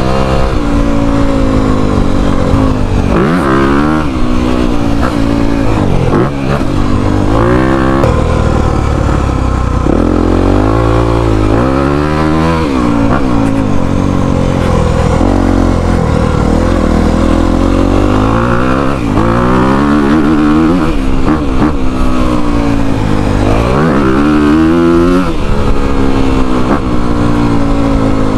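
Dirt bike engine being ridden, its revs rising and falling again and again as it accelerates, shifts and backs off.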